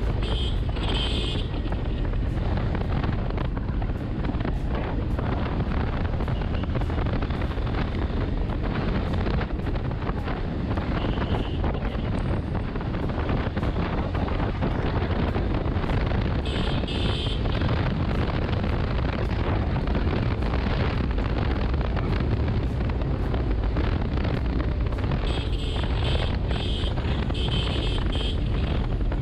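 Honda X-Blade single-cylinder motorcycle running at a steady cruise, under heavy wind rush on the camera microphone.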